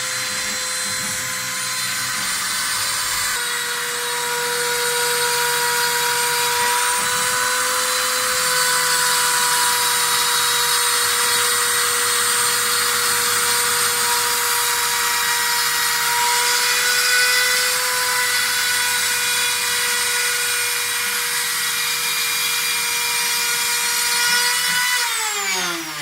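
CNC router spindle running with a steady high whine over a hiss of cutting, the whine shifting slightly about three and a half seconds in. Near the end the spindle winds down, its pitch falling.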